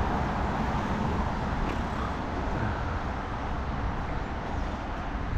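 Steady road traffic noise from cars on a busy street, an even rush with no single standout event.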